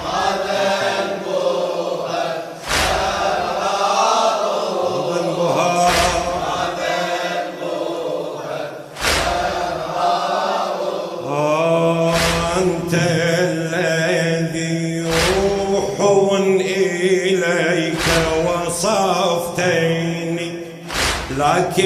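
Mourning latmiya chant by voices, in long held phrases over a steady low drone, with a sharp strike about every three seconds keeping the beat.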